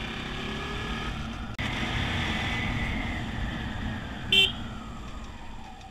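Motorcycle engine running under way with road and wind noise, its note falling slowly as the bike eases off. A single short horn beep about four seconds in is the loudest sound.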